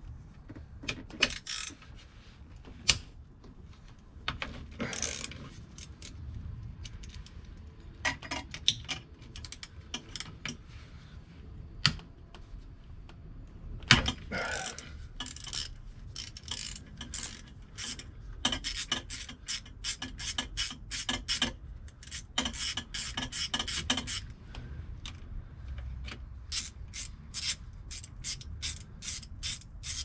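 A hand ratchet clicking in quick runs, mixed with a few sharper knocks of tools and metal parts: fasteners being undone while the rear of a scooter is stripped for a wheel change.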